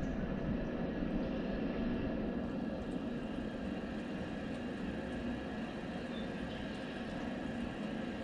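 Steady rain falling, an even hiss with a low rumble underneath. A single faint, high chirp about six seconds in.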